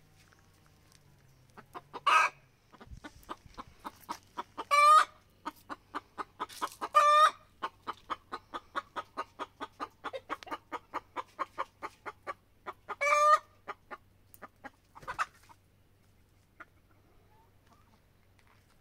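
A hen cackling: a long run of quick clucks, about four a second, broken by four loud drawn-out squawks, before it stops a few seconds from the end.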